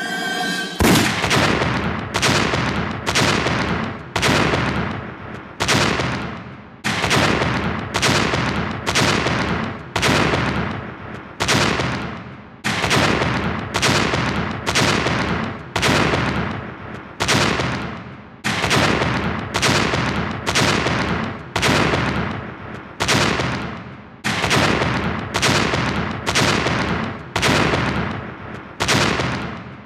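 An explosion sound effect looped over and over: a sudden blast roughly every three-quarters of a second, each fading away before the next begins.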